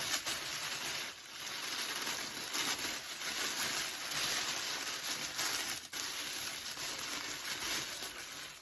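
Packaging crinkling and rustling without a break as it is handled and opened to get a toy figure out, with a few sharper crackles.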